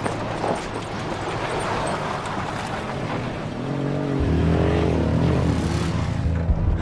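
Pickup truck engine running as it drives over rough dirt ground, with a low rumble and clatter. About halfway in, background music with a low drone and a wavering melody comes in over it.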